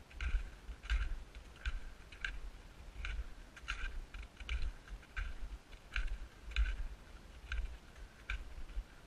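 Footsteps crunching in packed snow at a steady walking pace, about one and a half steps a second, each with a dull low thump.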